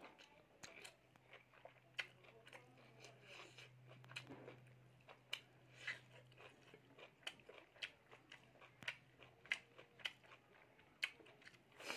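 Close-miked chewing of pork: a string of short, sharp mouth clicks and smacks, faint overall. A low steady hum underneath stops about halfway through.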